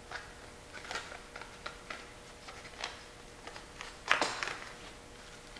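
Handling sounds of a paper target card being fitted into the slot of a Laser Ammo IMTTS target base unit: light scattered taps and rustles, with a louder brief scraping rustle about four seconds in as the card slides into the slot.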